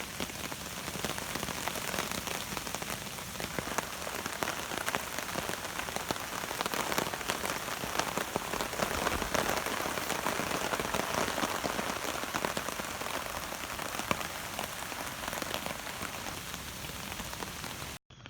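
A passing rain shower: a steady hiss of rain with the patter of many individual drops, cutting off abruptly near the end.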